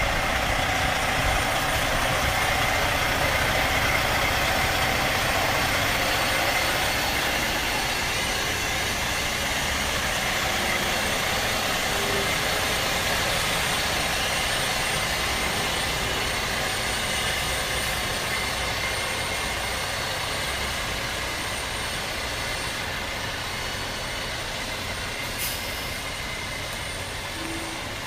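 A semi truck driving, its engine running under a steady rushing noise that fades slowly.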